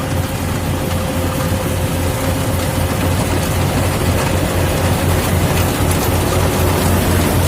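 Yanmar AW70 rice combine harvester's diesel engine and machinery running steadily: a constant low drone with a faint steady whine over a wide mechanical rush, growing slightly louder.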